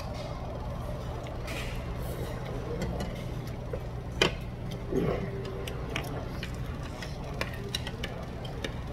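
Metal chopsticks and spoon clicking and scraping against bowls and a plate while eating, with a sharper clink about four seconds in, over a steady low room hum.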